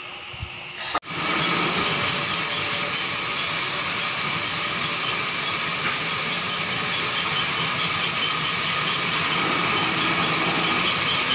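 Sawmill saw cutting timber: a loud, steady whine over noise that starts abruptly about a second in and runs on without a break.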